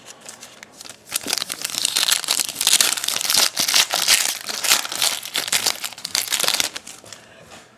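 Foil wrapper of a 2011 Elite Extra Edition baseball card pack crinkling as hands tear it open and peel it off the cards. It is a dense, crackly rustle that starts about a second in and dies away about a second before the end.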